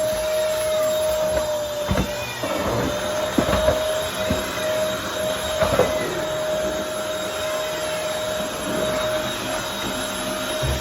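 Vacuum cleaner running with a steady motor whine, with a few knocks and scrapes about two, three and a half, and six seconds in as it is pushed around.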